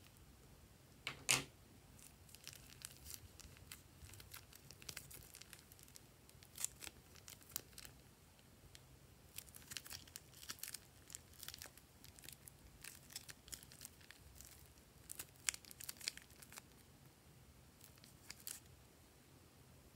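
Plastic piping bag crinkling and crackling in irregular clusters of small clicks as it is squeezed and foam beads in glue are pushed out into a glass dish, with one sharper snap about a second in.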